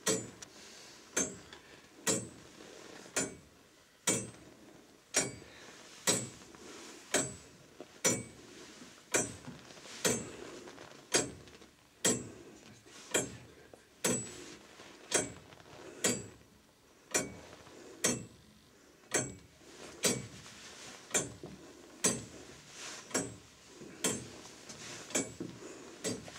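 Mechanical church tower clock movement ticking: one sharp metallic tick about every second from its escapement, each ringing briefly.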